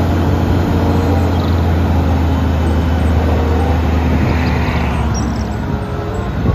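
Diesel engine of an eight-wheel tipper truck running steadily with a low drone while its hydraulic ram raises the tipper body.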